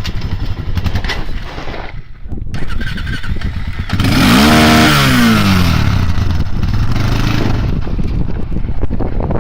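ATV engine running and revving: about four seconds in the pitch climbs and falls back over a second or two. Wind rushes over the microphone from then on.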